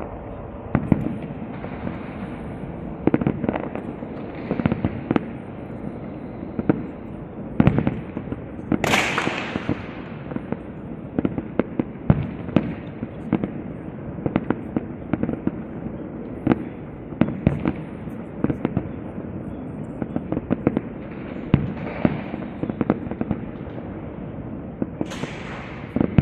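Castillo aerial fireworks display by Pirotecnia Zaragozana going off: a rapid, irregular series of sharp bangs and booms, with a louder hissing rush about nine seconds in and again near the end.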